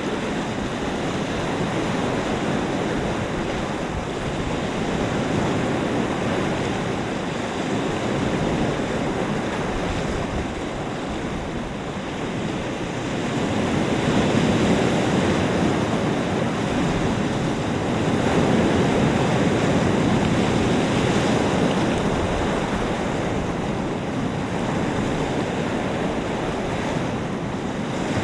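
Lake waves washing against the shore in the wind, a steady rushing that swells and eases over several seconds.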